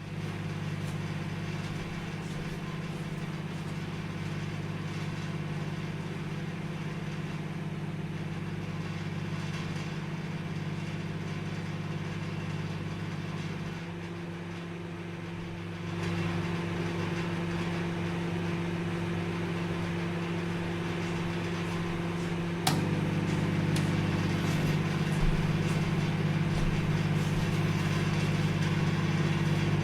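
Microwave oven running: a steady electrical hum with a light whir, shifting in tone twice midway. A sharp click comes about two-thirds of the way through, after which the hum is louder.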